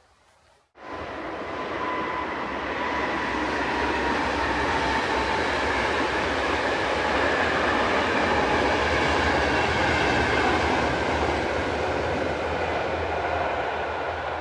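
Express passenger train hauled by an electric locomotive passing over a concrete railway viaduct: a steady rushing rumble of wheels on rails that starts abruptly about a second in and builds, with a faint high whine over it.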